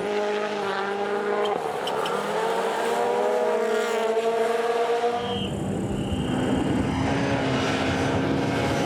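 Rally car engine running at high revs, with a steady note. About five seconds in, it changes abruptly to a lower engine note that slowly rises over a low rumble.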